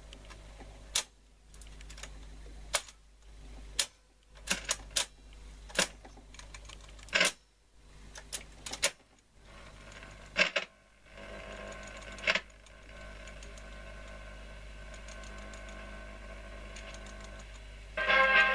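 Sharp mechanical clicks and clunks, about a dozen spaced irregularly, as the controls of a Walter 101 reel-to-reel tape recorder are switched by hand, over a steady hum. From about eleven seconds in a steady running noise from the deck joins them, and a louder burst of sound comes right at the end.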